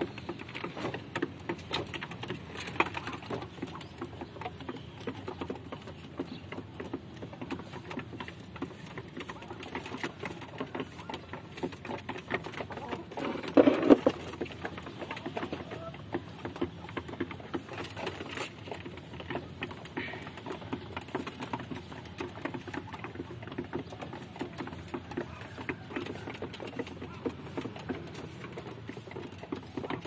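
Domestic pigeons pecking grain off a corrugated metal roof sheet: a dense, irregular patter of quick beak taps, with one brief louder low sound about halfway through.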